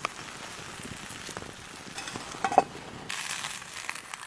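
Eggs sizzling and frying in a metal pan, a steady hiss with small crackles, and a sharp clink of metal about two and a half seconds in.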